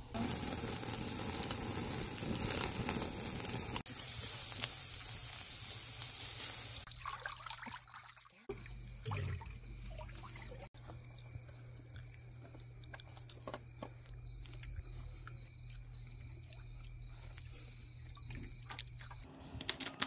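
A steady hiss for about the first seven seconds. Then, after a short break, a low steady hum with faint trickling water and small ticks.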